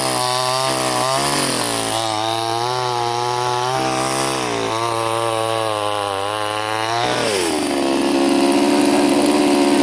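Gasoline chainsaw bucking a log into firewood lengths, the engine running hard under load. Its note sags and recovers a few times as the chain bites. About seven seconds in it drops and settles into a lower, louder note.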